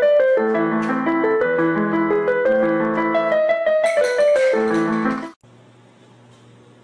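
Electric keyboard playing a tune, a melody over held chords, that stops abruptly about five seconds in. After it there is only a faint steady low hum.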